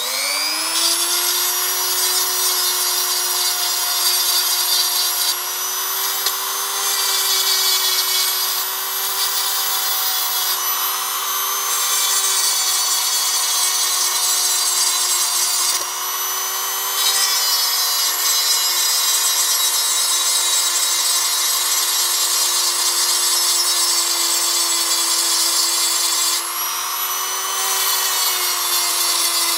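Small high-speed electric rotary tool spinning up and running steadily, its pitch dipping briefly twice as it bites, to take more plastic off the laptop's antenna part.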